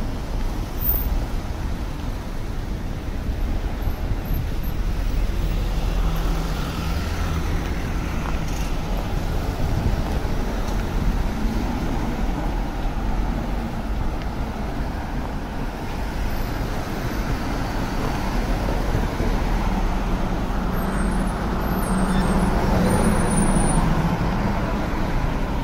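City street traffic: cars and other motor vehicles running past in a steady wash of road noise, with a low hum growing louder near the end.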